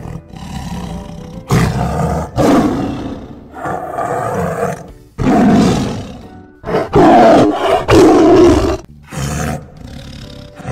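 Tiger roaring, a run of several separate loud roars one after another, the loudest a little past the middle.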